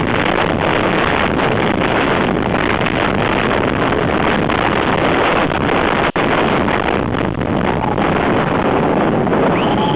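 Wind buffeting the microphone together with the rumble of a wooden roller coaster in motion, making a steady, loud rushing noise. It cuts out for an instant about six seconds in.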